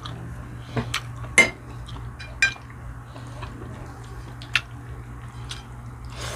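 Cutlery clinking and scraping against a plate while eating, with several sharp clinks, the loudest about a second and a half in and others near two and a half and four and a half seconds in. A low steady hum runs underneath.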